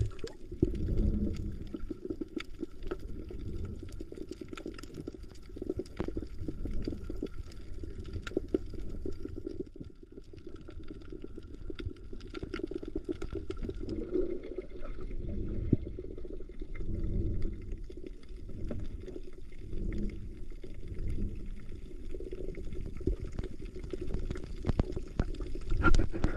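Muffled underwater sound from a camera held below the surface: a low, uneven rumble of water moving around the housing, with scattered faint clicks.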